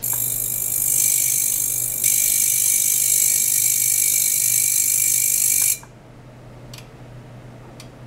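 Piezoelectric ultrasonic oscillation probe driven by a function generator, giving off a loud high-pitched whine: one steady high tone with hiss above it. It steps louder about two seconds in and cuts off suddenly near six seconds, followed by two faint clicks.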